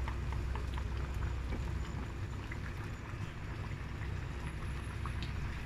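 Pot of mung bean soup with pumpkin boiling, with a fine, steady crackle of bubbles over a steady low hum.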